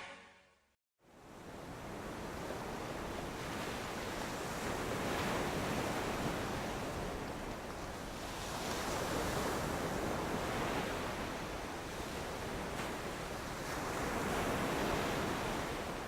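A rushing noise that starts about a second in and swells and eases every four or five seconds, like surf washing in.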